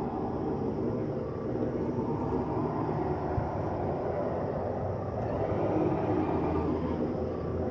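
HG-P408 radio-controlled Humvee model running steadily while it pushes snow with its front plow blade; the sound swells and brightens about five seconds in.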